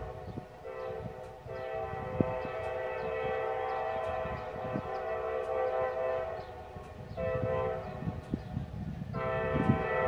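The air horn of an approaching GP59E diesel locomotive sounds the grade-crossing signal: long, long, short, long. It is a steady chord of several tones with short breaks between the blasts.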